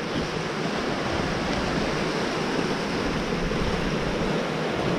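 Flooded upland stream in spate, fast white water rushing over its rocky bed in a steady, unbroken noise.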